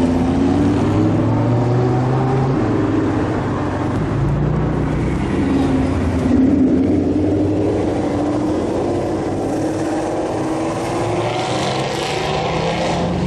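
Car engines running as modified cars drive off, the engine note climbing slowly as one accelerates away.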